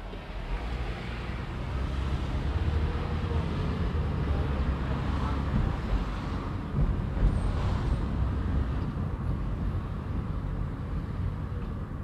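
Car driving along a town street: a steady low rumble of engine and tyre noise, a little louder in the middle and easing near the end.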